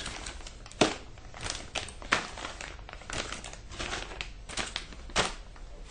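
Clear plastic bags of alligator clips crinkling and rustling as they are handled, with a few sharper clicks in between.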